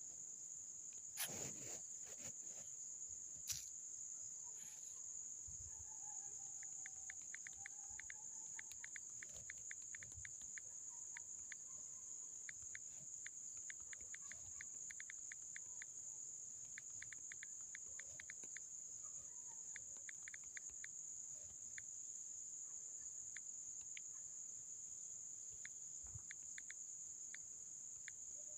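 Faint, steady, high-pitched trill of insects, with soft rapid ticking through the middle and a few sharp clicks in the first few seconds.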